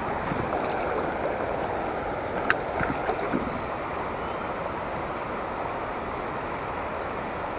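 Shallow river riffle running over stones: a steady rush of flowing water. A single sharp click comes about two and a half seconds in.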